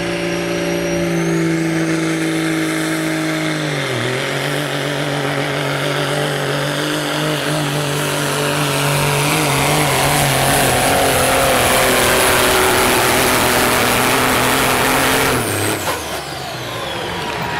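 Pro stock semi truck's diesel engine pulling a sled at full load: a steady, loud drone with a high turbo whistle, dipping briefly in pitch about four seconds in. Near the end the engine drops off and the whistle falls away, with a burst of hiss as the pull stops.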